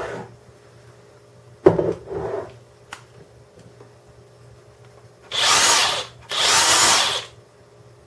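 Handheld power tool motor run in two short bursts of about a second each, after a knock and some handling noise.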